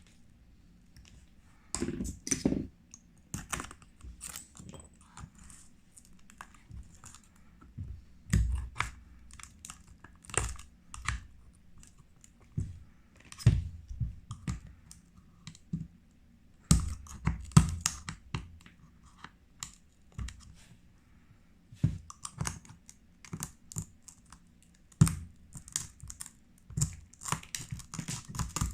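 Irregular clicks and taps of a hand tool picking cracked, laser-loosened back glass off a smartphone, some coming in quick clusters.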